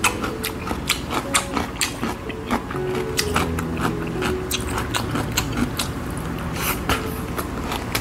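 Close-up mouth sounds of a person chewing a mouthful of clam kalguksu noodles: many quick, wet clicks with no steady rhythm.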